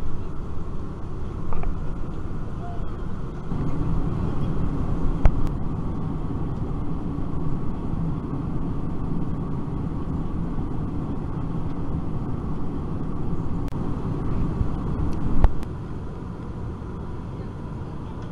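Steady low rumble of an Airbus A321 airliner cabin in cruise, engine and airflow noise. It swells a little about three and a half seconds in, has sharp clicks about five seconds and fifteen seconds in, and drops quieter just after the second click.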